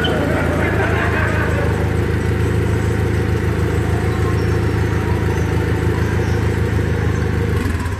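Turbocharged Honda K24 four-cylinder engine of a Civic hatchback running steadily at idle on a dynamometer, a low rumble that cuts off suddenly near the end.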